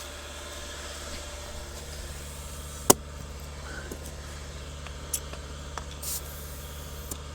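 Steady low mechanical hum with a sharp click about three seconds in and a short hiss of air around six seconds, typical of a pressure gauge being pressed onto a tyre valve stem.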